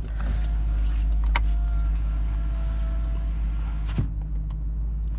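2022 Dodge Durango SRT 392's 6.4-litre HEMI V8 idling steadily, heard from inside the closed cabin, with a couple of light clicks.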